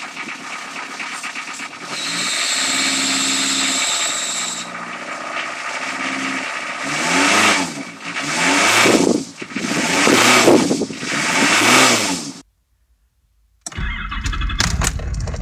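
Ford Fiesta diesel engine running just after a cold start, idling steadily, with a high whine for a couple of seconds early on. It is then revved four times in quick succession, each rev rising and falling. After a sudden cut to silence, a low rumble starts near the end.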